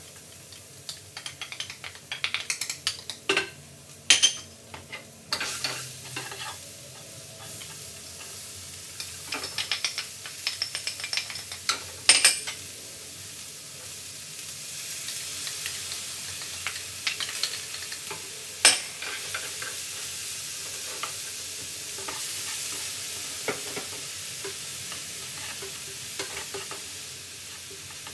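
Chopped onion, garlic, peppers and tomato sizzling in oil in two nonstick skillets, with a wooden spoon scraping and knocking against the bowls and pans as the vegetables are tipped in and stirred. Several sharp knocks stand out, the loudest about 4, 12 and 19 seconds in, and the sizzle grows steadier and stronger in the second half.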